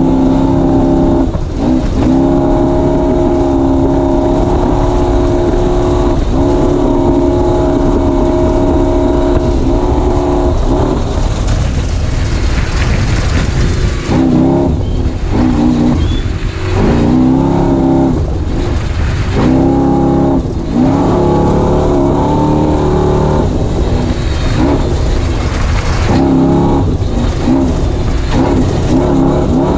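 Off-road race vehicle's engine at speed. It holds a steady high pitch for about the first ten seconds, then the revs rise and fall repeatedly, with a few brief drops.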